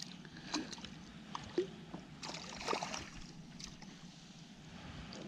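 Water lapping and small splashes at the side of a kayak as a hooked bass thrashes at the surface, with a few scattered light knocks.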